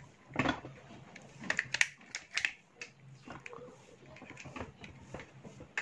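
Irregular light clicks and taps of hands connecting wires to the terminals of a plastic USB charger socket module.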